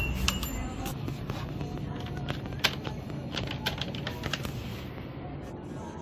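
Plastic shopping basket and its hinged plastic handles clicking and knocking as it is picked up and handled: a scattered series of sharp clicks.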